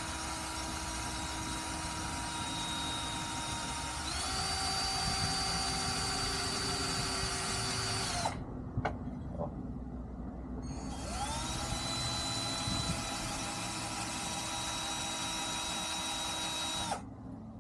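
Electric drill running in two long runs. The first steps up in pitch about four seconds in; after a short pause the second spins up and runs steadily until it stops near the end.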